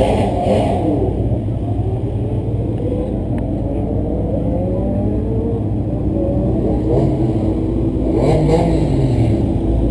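Sports-car engines running and revving, their pitch rising in several sweeps, with the loudest rev about eight seconds in.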